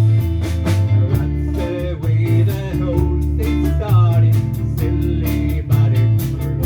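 A band playing a 1960s pop song: strummed guitar chords over a bass line, with a steady beat.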